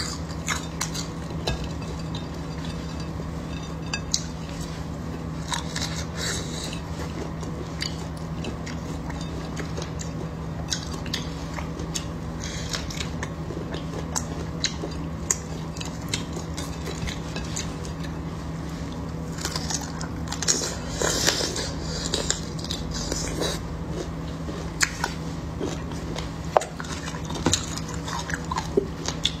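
Close-miked crackling and tearing of crisp fried meat pulled apart by hand, with many small sharp clicks and a denser spell of crackling partway through. Biting and chewing come in near the end.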